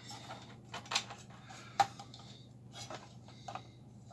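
Scattered light clicks and taps, about five in a few seconds, as small parts and tools are handled inside an opened power amplifier, over a faint steady low hum.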